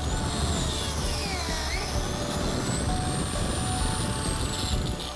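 Freud biscuit joiner running steadily at full speed, its spinning blade plunged into a cedar board to cut a biscuit slot.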